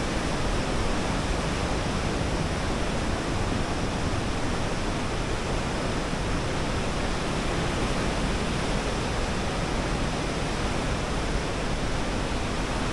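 Steady rushing noise with a deep rumble underneath, even throughout.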